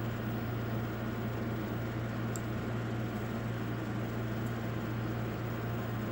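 Steady low hum with a hiss, and two faint ticks, a little over two seconds in and again about two seconds later.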